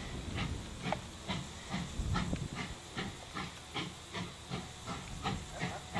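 Russian E-class 0-10-0 steam locomotive working, its exhaust chuffing at a steady rhythm of about two and a half beats a second with a hiss of steam.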